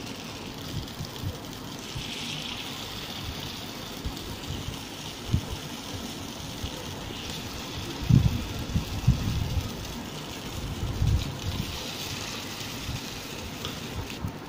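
Batter-coated sugiyan balls sizzling in ghee in a paniyaram pan: a steady frying hiss, with a few dull knocks from handling the pan and bowl.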